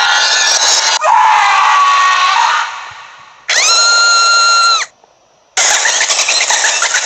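A run of separate short stock sound effects, one after another: a noisy effect, then one with a rising pitch that fades away, then a steady electronic beep of about a second, a short silence, and another noisy effect near the end.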